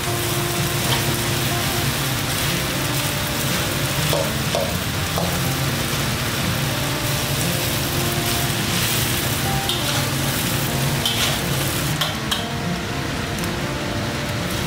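Rice sizzling as it stir-fries in a steel wok, stirred and scraped with a metal spatula and a rice paddle, with occasional short clinks of the utensils against the wok.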